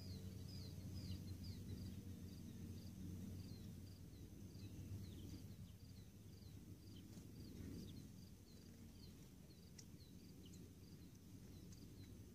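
Faint outdoor ambience: a small bird repeating short high chirps, two or three a second, over a low steady hum, with the last trace of a distant siren tone fading out in the first second.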